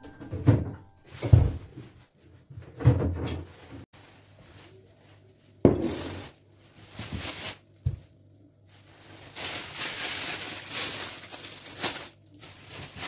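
Groceries being set down on a kitchen counter: several dull knocks as plastic drink bottles and a jar are put down, then plastic shopping bags rustling and crinkling from about nine seconds in.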